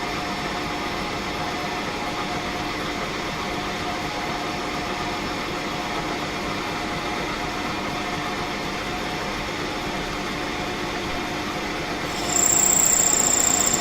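Smart & Brown metalworking lathe running steadily with a hum. About twelve seconds in a louder sound with a high, steady whistle sets in, as the tool starts cutting into the stainless steel rod.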